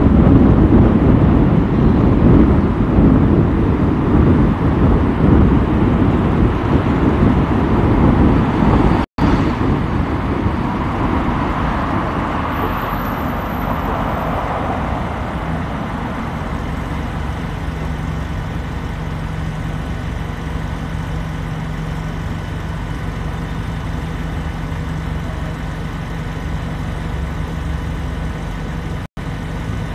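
Car driving in traffic: road rumble and wind noise, heavy for the first nine seconds, then a quieter run after a split-second dropout. A steady low engine hum comes in a little past halfway, and the sound cuts out for an instant once more near the end.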